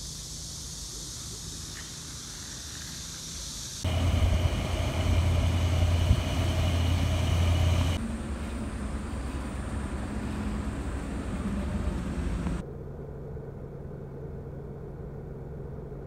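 Car noise in several abruptly cut stretches: a steady low rumble, loudest for a few seconds from about four seconds in, then a quieter steady hum.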